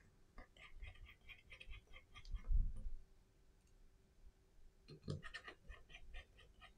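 Quick runs of light clicks and scratches from a precision screwdriver and tiny screws being worked into a phone's frame, with a soft thump about two and a half seconds in and another near five seconds.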